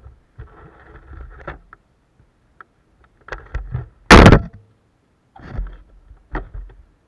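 Handling noise from an action camera being grabbed and moved on a car's open tailgate: rubbing, a run of clicks and knocks against the camera and its mount, and one loud knock just after four seconds in, followed by a few more knocks.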